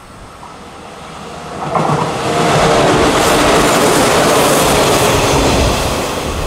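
An electric multiple unit train passing close by at speed, its wheels running on the rails. The sound builds from about a second and a half in, stays at full level through the middle as the cars go by, and eases off near the end as the train moves away.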